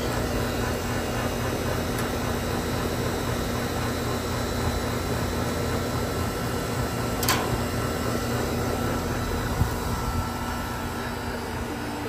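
Rebuilt 2010 Goodman heat pump outdoor unit running steadily: the hum of the compressor and the whoosh of the condenser fan. One brief click about seven seconds in.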